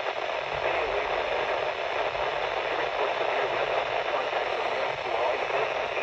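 Midland NOAA weather alert radio tuned to 162.525 MHz giving a steady hiss of static, the sound of weak reception of the weather broadcast.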